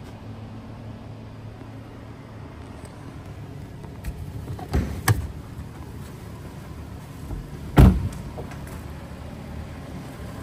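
Lamborghini Urus driver's door shut with one heavy thump about three quarters of the way through, after two lighter knocks around the middle. A steady low hum runs underneath.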